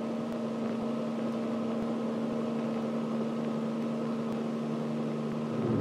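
A steady mechanical drone: an even hum with several held tones over a light hiss. It drops to a lower hum right at the end.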